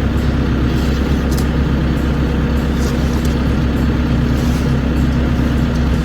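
Volvo ECR88 compact excavator's diesel engine running steadily, with a few faint clicks.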